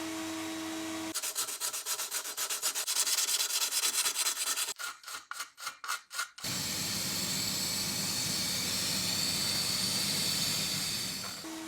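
Quick rhythmic rubbing strokes, about four a second, for about five seconds, then a steady hiss that stops near the end.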